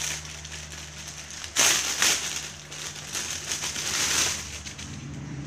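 Thin clear plastic packaging bag crinkling and crackling as hands open it and pull out its contents, loudest in bursts about a second and a half in, around two seconds and near four seconds.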